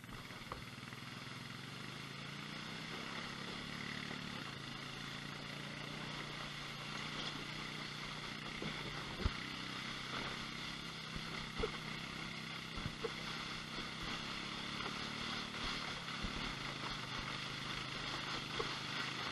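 A side-by-side UTV engine running steadily as it tows a kayak, heard muffled through a GoPro's closed housing, its pitch drifting slowly up and down. A few sharp knocks come through over it.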